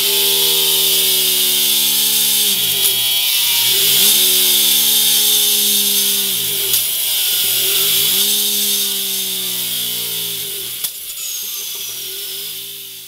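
Ducati Multistrada 950's 937 cc L-twin engine running at high revs through a MIVV Double Gun titanium twin-tip exhaust. Its pitch drifts slowly down, with a swirling sweep in the tone every few seconds, and it fades out near the end.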